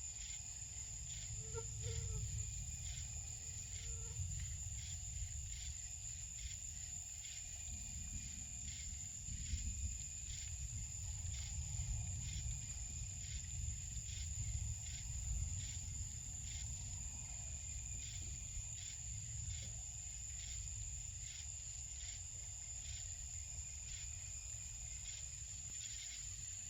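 Night insects such as crickets chirping in a regular rhythm over a constant high-pitched whine, with a low rumble underneath.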